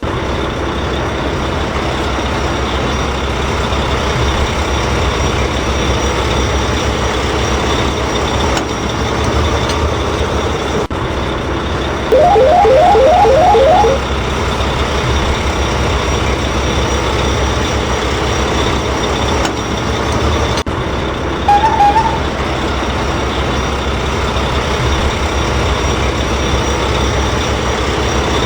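Truck engine running steadily. About twelve seconds in, a loud quick run of about six beeps sounds for some two seconds, and a short double beep comes near the end.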